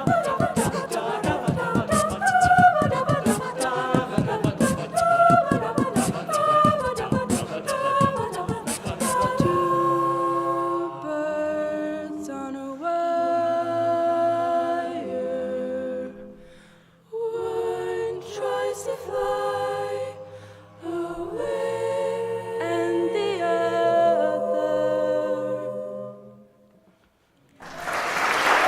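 A cappella vocal group singing wordlessly: first over rhythmic vocal percussion clicks, then in sustained chords that break off twice and fade on a final chord. Applause breaks out near the end.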